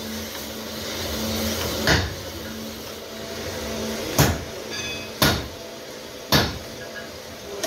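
Cylinder-honing machine working in a tractor engine's cylinder sleeve. It gives a steady motor hum that fades out about two and a half seconds in, and four sharp knocks at irregular intervals.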